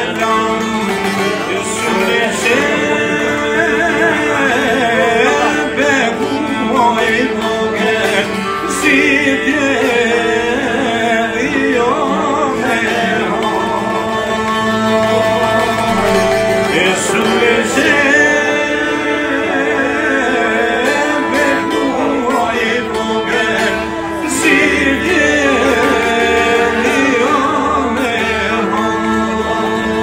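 A man singing an Albanian folk song, accompanied by several long-necked lutes plucked and strummed together, without a break.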